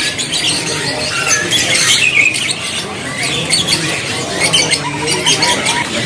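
Many caged small songbirds chirping and twittering at once, a dense overlapping chorus of short high calls.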